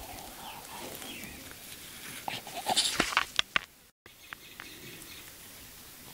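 Phone microphone handling noise: rubbing, then a quick run of sharp knocks, the loudest part, about two to three and a half seconds in. The sound drops out to dead silence for a moment where the recording cuts. Faint high gliding calls come near the start.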